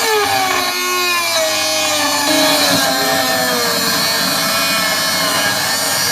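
Dremel 3000 rotary tool cutting into rusted sheet steel: a high motor whine that drops in pitch as it bites into the metal at the start, then keeps working under load with a harsh grinding hiss. It sounds underpowered compared with the Dremel 4000 it replaces.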